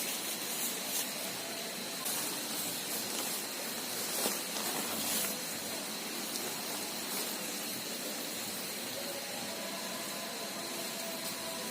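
Steady rushing of a river. A thin, high steady tone runs over it, and there are scattered crackling clicks in the first five seconds or so.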